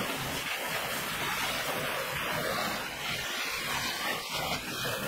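Garden hose spray nozzle hissing steadily as a jet of water rinses out the inside of a plastic kayak, spattering on the hull.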